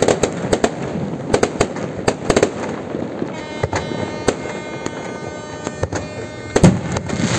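Fireworks display: a rapid, irregular run of bangs and crackles as shells burst and rockets go up. Through the middle a steady high tone sounds for about three seconds.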